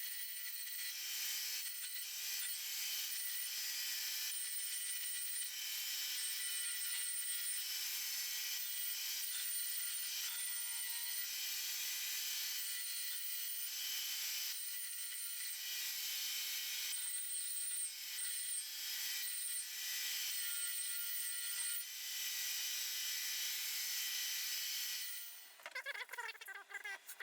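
Sanding of the knife's wooden handle: abrasive rubbing hard against wood over a steady hum, running in long stretches with a few short breaks and stopping near the end.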